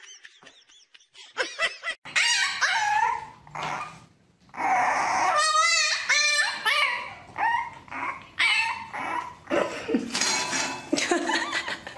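Dog vocalizing in a run of short pitched cries that rise and fall, starting about two seconds in, with one wavering cry a little past halfway.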